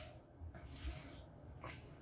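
Faint footsteps and a few soft thuds in a quiet room, as someone steps through a doorway past a heavy steel door.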